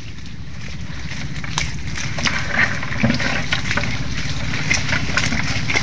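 Leafy mangrove branches rustling and crackling as they brush against the phone, over a steady low rumble.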